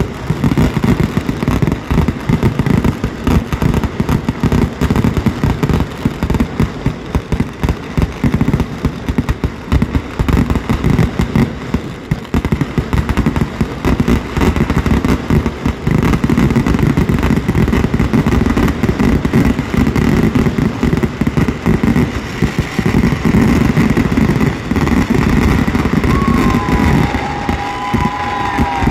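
Dense, continuous barrage of fireworks at a Kerala temple festival display, many blasts per second merging into a deep crackling rumble. A brief gliding high tone cuts through near the end.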